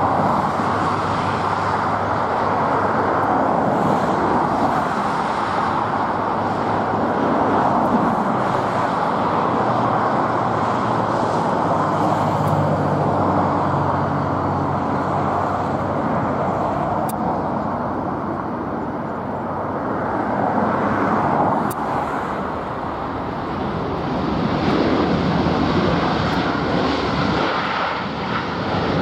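Jet airliner landing close by: a loud, steady jet engine noise that eases off about two-thirds of the way through and then builds again.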